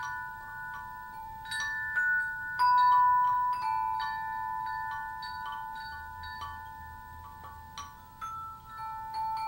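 Background music of struck, bell-like chime or glockenspiel notes in a slow melody, ringing out over long held tones.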